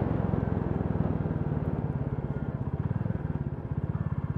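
Royal Enfield Classic 350's single-cylinder engine running at low road speed, with an even, distinct firing beat. The beat softens through the first part and grows stronger and more regular again near the end.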